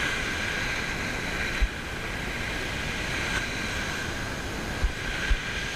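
Small waves breaking and washing over a shingle beach: a steady rushing hiss, with three brief low thumps.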